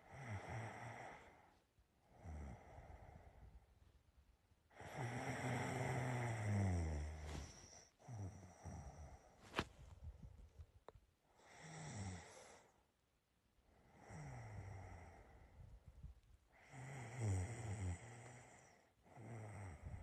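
A person snoring, in about eight uneven breaths with pauses between them. The longest and strongest snore comes about five seconds in. A single sharp click sounds near the middle.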